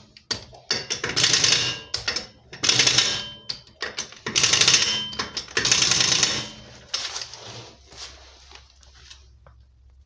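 Pneumatic impact wrench rattling on the lug nuts of a steel wheel in about five short bursts, then quieter clattering near the end: the nuts are being run down and tightened on a freshly mounted wheel.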